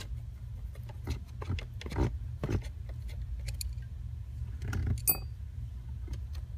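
Small metal clicks and knocks of a hand tool and parts being handled at the shift interlock cable mount on a Volvo S40 steering column as the cable is unbolted and pulled free, with a short ringing metal clink about five seconds in, over a steady low hum.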